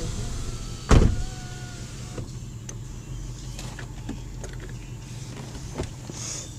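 Car driving, a steady low rumble heard from inside the cabin, with one loud thump about a second in and a few light clicks after it.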